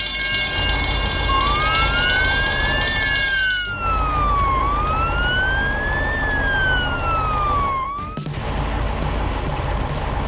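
Emergency vehicle siren wailing, sliding slowly up and down in pitch through about two rises and falls before stopping shortly after the middle. It sits over a low rumble, with a steady high tone held through the first few seconds.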